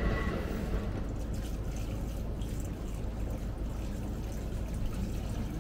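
Hot-spring water trickling and lapping in an open-air footbath, over a steady low background rumble.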